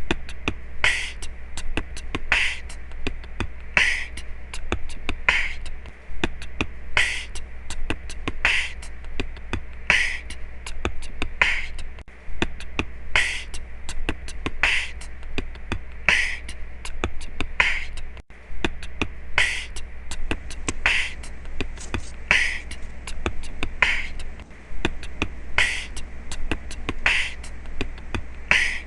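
Background music with a steady beat: a sharp percussive hit about every second and a half, lighter ticks between, over a low steady bass hum.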